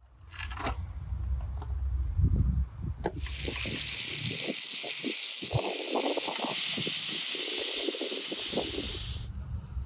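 Food frying in hot oil over a fire: a loud, steady sizzle with small pops that starts abruptly about three seconds in and cuts off shortly before the end. Before it there is a low rumble with a few clicks.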